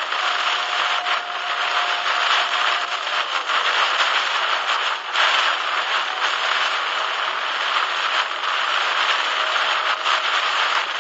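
Heavy rain hitting the car's windshield and roof, heard from inside the car as a dense, steady hiss.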